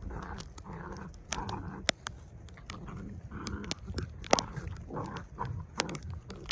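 Two puppies vocalizing in short bursts as they wrestle and play-fight, with many sharp ticks of sleet striking the microphone.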